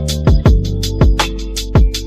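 Background music with a steady beat: a thumping kick drum about every half second, hi-hat ticks between, and held bass and synth notes.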